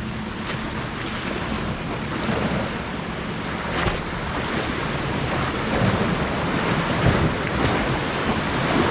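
Ocean waves washing in, with wind buffeting the microphone, growing a little louder in the second half.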